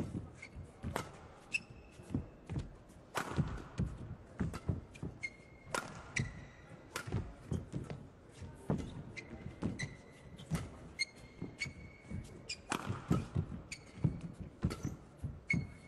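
Badminton rally on an indoor court: sharp racket strikes on the shuttlecock about every second or so, court shoes squeaking briefly on the court mat, and thudding footfalls as the players lunge and recover.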